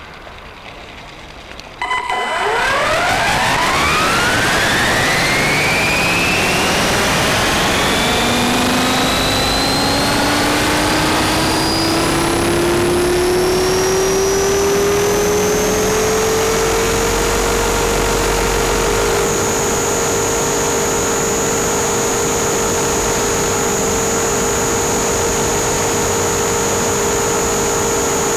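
RC helicopter spooling up: a motor whine starts suddenly about two seconds in and sweeps up steeply. The rotor's pitch then climbs slowly for about fifteen seconds and holds steady at flying speed.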